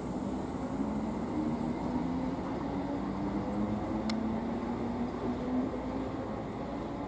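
Greater Anglia Class 321 electric multiple unit running slowly through the platform: a steady rumble of wheels and running gear with a wavering electrical hum. A single sharp click comes about four seconds in.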